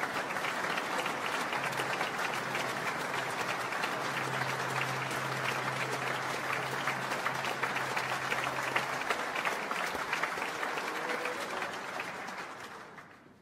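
Concert audience applauding steadily, the clapping dying away near the end.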